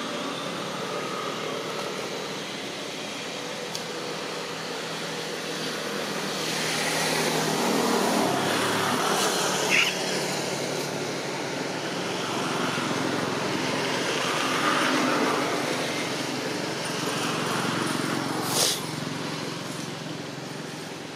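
Motor vehicle engines passing, the sound swelling and fading twice. A brief sharp sound comes near the end.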